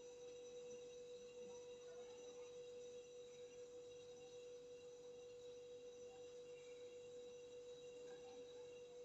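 Near silence, with a faint steady mid-pitched tone that holds unchanged throughout.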